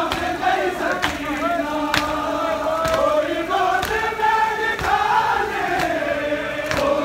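A large crowd of men chanting a mourning lament together, with a sharp, slapping beat about once a second from their hands striking their chests in unison (matam).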